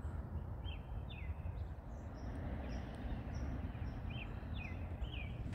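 Outdoor ambience: a steady low rumble with small birds chirping, short downward-sliding chirps in quick pairs and threes, and fainter higher notes between them.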